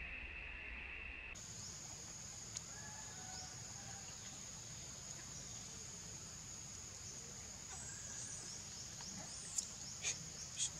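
Woodland ambience: a steady high-pitched drone with faint chirping bird calls, and a few sharp clicks near the end.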